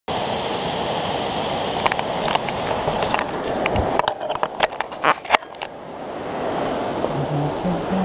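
Action camera being handled: a run of sharp clicks and knocks between about two and five and a half seconds in, over a steady rushing noise. A few low, stepped notes start near the end.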